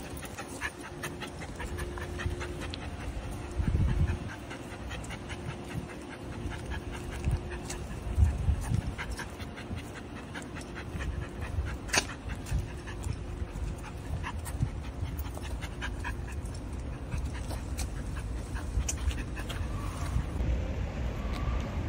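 Golden retriever puppy panting steadily as it trots on the leash, with many light ticks of steps on the paving stones and one sharper click about twelve seconds in.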